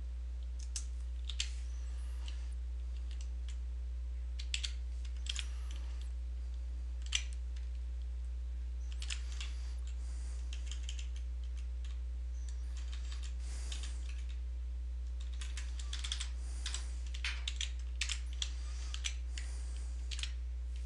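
Computer keyboard keys tapped in short, scattered bursts with pauses between, over a steady low hum.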